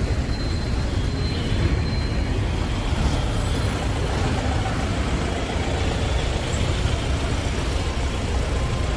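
Bus engine running with a steady low rumble, heard from inside the bus, with the noise of surrounding road traffic.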